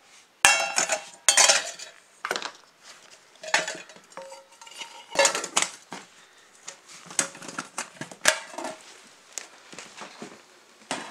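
Stainless steel mess kit pots, frying pan and plate clanking and clinking against each other as they are handled and nested together. The knocks are irregular and metallic, with a short ring after each, and the loudest come in the first second and a half.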